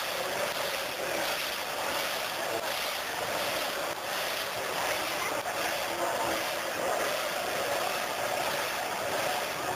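Steady din of a large crowd, many voices merged into one continuous wash of noise with no single voice standing out.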